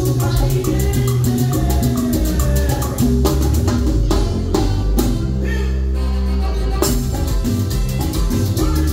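A live Latin dance band plays: drum kit, congas, electric guitar and keyboard over a steady beat with evenly spaced high percussion strokes. About four seconds in, the percussion drops out for a couple of seconds under held bass notes, then the full rhythm comes back in.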